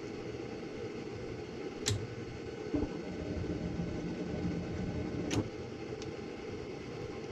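Gas furnace trying to light: a steady fan hum, a sharp click about two seconds in, a low thump, then a louder low rush of burner flame that stops with another click a couple of seconds later. The burners light and drop out because the flame is not proven; the flame sense wire had come off the control board.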